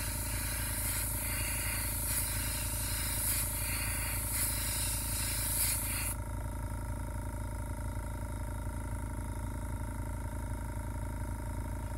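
Airbrush spraying paint, a hiss that swells and dips in uneven pulses as the trigger is worked, stopping about six seconds in. A steady low machine hum carries on underneath throughout.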